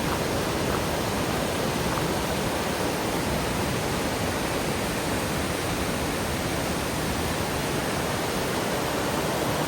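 Steady rush of water falling over Buttermilk Falls, an even, unbroken roar.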